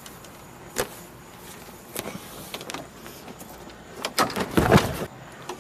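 A sharp click about a second in, then a burst of cloth rustling and thumps about four seconds in as a shirt is pulled off and flung.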